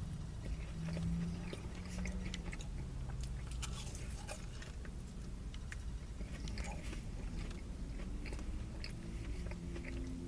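A person biting and chewing French fries, with small wet clicks and crunches of the mouth.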